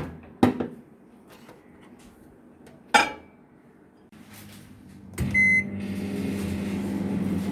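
Two sharp clacks, then a short beep about five seconds in as a microwave oven on combined microwave-and-convection mode is started, followed by its steady running hum.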